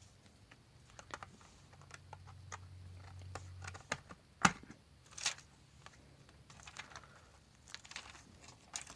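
Small objects being handled at close range: scattered light clicks and taps, with one sharper click about four and a half seconds in and a brief hiss just after it.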